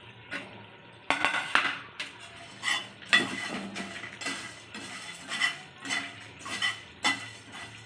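A steel spatula scraping and knocking against a nonstick frying pan as whole dry spices are stirred and roasted, in irregular strokes about one or two a second.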